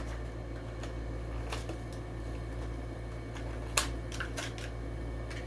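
Sporadic clicks and light crinkling as a diecast toy car's cardboard-and-plastic package is worked open by hand, with one sharper click about four seconds in, over a steady low hum.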